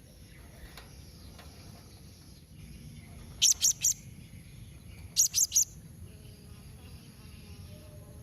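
Blue-crowned hanging parrot (serindit) calling: two quick bursts of four short, high-pitched chirps, a little under two seconds apart, over a faint steady hiss.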